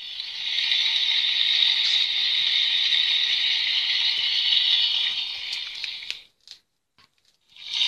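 Recorded rain pattering, played through the small speaker of a children's sound book, steady for about six seconds and then cutting off. A few faint clicks follow, and another sound clip begins right at the end.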